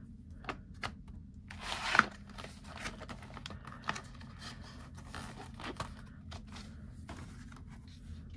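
Hands handling oil pastel sets and their cardboard box: scattered clicks and taps of sticks and box parts, with a scraping slide that ends in a sharp knock about two seconds in.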